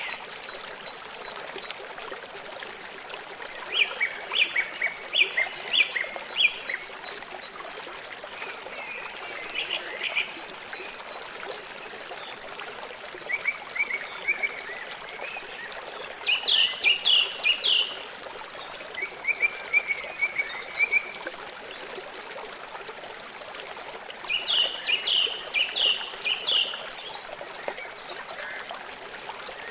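Steady running water of a stream, with a small bird singing short phrases of quick, high repeated notes every few seconds.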